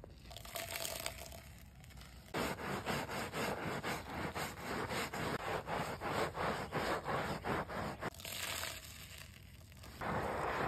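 Rhythmic scrubbing strokes on a soapy rubber car floor mat, about four a second. Near the end, water pours onto the mat in a steady rush.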